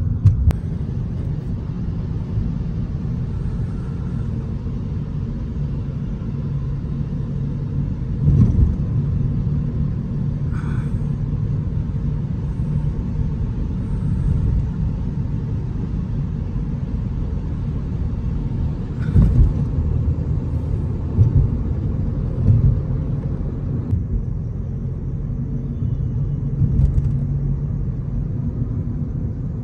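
Cabin sound of a Mercedes A200d diesel hatchback on the move: a steady engine and road rumble while cruising, with a few brief thumps along the way.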